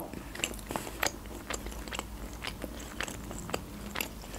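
A person chewing a mouthful of pide, a meat, cheese and pepper flatbread, with the mouth closed: irregular small mouth clicks, about three or four a second.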